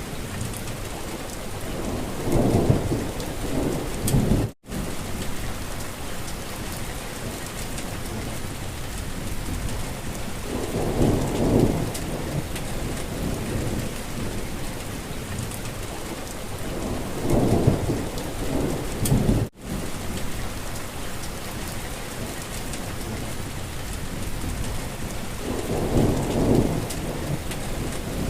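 Steady rain falling. Four times a low rumble swells up and fades over a couple of seconds. Twice the sound cuts out for an instant.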